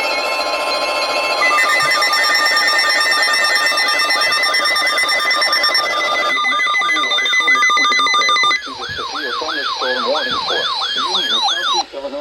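Electronic emergency alert tones layered together: several steady held tones with a fast, siren-like warbling tone sweeping up and down over them. About eight and a half seconds in the sound drops a little, and the warble changes to a slower, lower sweep that stops just before the next announcement.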